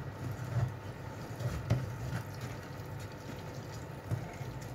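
Hand-cranked stainless-steel food mill turning through fresh tomato pulp and pressing it through the sieve, with a few light clicks of the blade on the metal.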